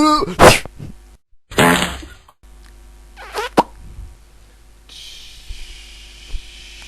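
A string of short cartoon vocal noises. There is a loud, short burst about half a second in, then a longer rasping cry at around a second and a half, then a quick falling squeak past three seconds. A faint hiss follows near the end.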